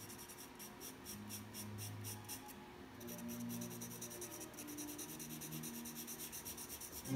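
Charcoal pencil scratching on toned paper in quick, short, even strokes, about five a second, with a brief pause about halfway through. Soft music plays underneath.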